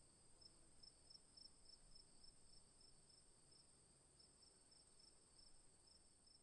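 Faint chorus of crickets: a steady high trill with a short, higher chirp repeating about two to three times a second over it.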